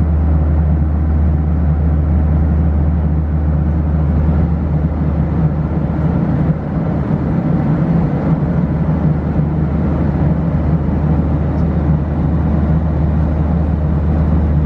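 Steady cabin noise inside a Boeing 737-900 airliner: a constant low hum from the engines and airflow with an even rush over it.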